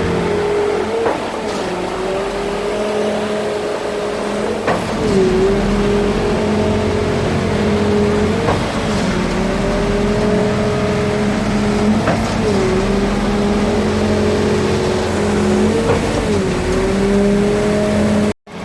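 Truck-mounted concrete boom pump working: its diesel engine runs steadily at high revs, with a clunk about every three and a half seconds, five in all, each followed by a brief sag in engine pitch as the pumping cylinders change stroke under load. The sound cuts off suddenly just before the end.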